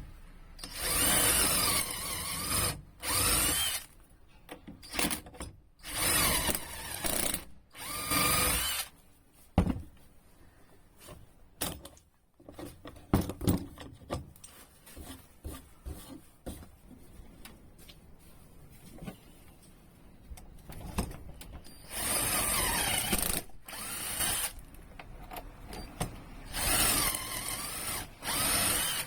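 Power drill running in short bursts of one to two seconds, its motor pitch rising and falling, with a quieter stretch of scattered knocks and clicks in the middle.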